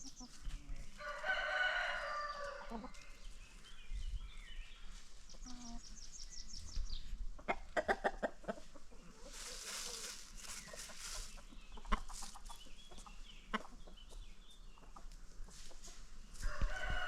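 Free-range chickens clucking, with a rooster crowing about a second in and starting to crow again near the end. Short calls and a burst of rustling around ten seconds in fill the middle.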